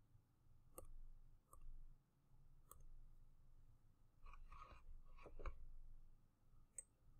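Near silence with a few faint, scattered clicks and taps, including a short cluster of them a little past the middle.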